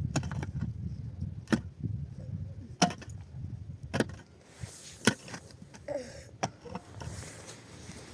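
A handful of sharp, irregular knocks of hard objects striking, about five spread over several seconds, over a low rumbling noise.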